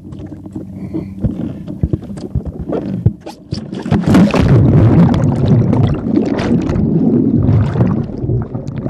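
A stand-up paddler falling off the board into the sea: scattered knocks against the board at first, then a splash about four seconds in, followed by loud churning and bubbling of water heard from underwater by a phone in a waterproof case.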